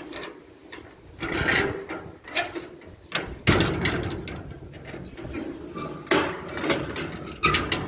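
Irregular knocks and clatter of objects being handled, loudest about three and a half, six and seven and a half seconds in, with a couple of brief squeaks.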